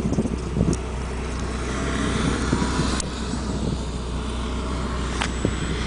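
Wind buffeting the microphone: a steady rumble with hiss. A few light clicks come through it.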